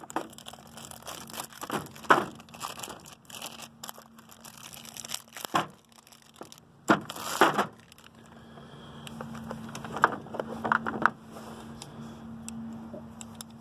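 Plastic packaging crinkling and rustling as a cordless ratchet kit is unboxed, with irregular clicks and knocks of the tool and sockets being handled.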